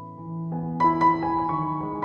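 Background piano music, with a few new notes struck about halfway through.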